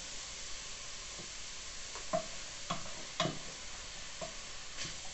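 Shredded-chicken empada filling sautéing with a steady sizzle in a stainless steel pot while a wooden spoon stirs it, knocking against the pot several times.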